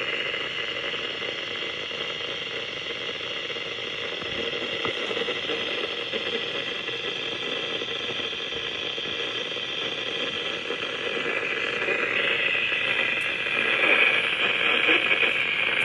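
Steady hiss and crackle of static from a Midland WR400 weather radio's speaker, the broadcast voice lost in reception noise; the static grows a little louder about twelve seconds in.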